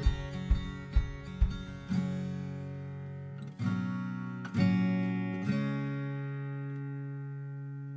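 Background music on acoustic guitar: quick rhythmic strumming at first, then a few single chords struck and left to ring, the last one fading out slowly.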